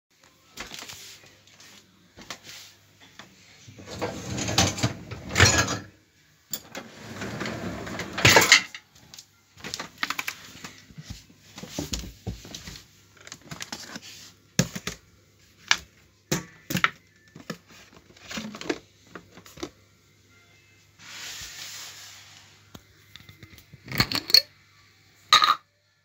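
Loaded wire racks of an open Kenwood dishwasher being handled, dishes and cutlery clinking and rattling. There are two longer rattles in the first third and another past the middle, with many separate sharp clinks in between.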